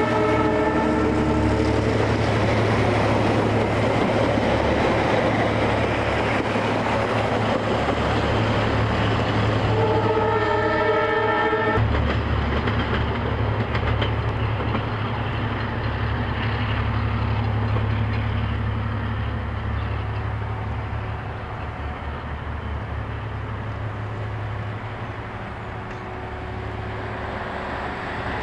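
Diesel-hauled passenger train rolling past: carriage wheels rumbling on the rails over a steady low engine drone. The locomotive's multi-note air horn sounds for the first two seconds or so and again for about two seconds around ten seconds in, and the train slowly fades as it draws away.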